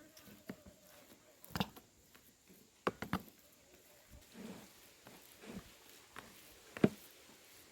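A few scattered light knocks and taps, the sharpest just before the end, with softer handling sounds in between.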